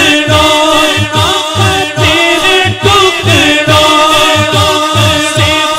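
Unaccompanied naat singing: a male voice holds long, bending sung notes with chorus voices behind, over a steady low rhythmic pulse.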